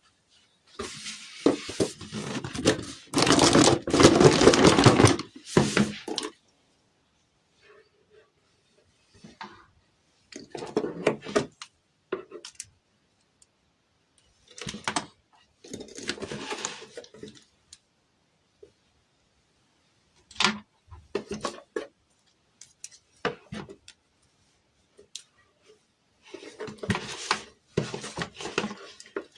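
Toy packaging being handled and opened by hand: bursts of rustling and tearing with small clicks and taps between them, the longest and loudest in the first few seconds.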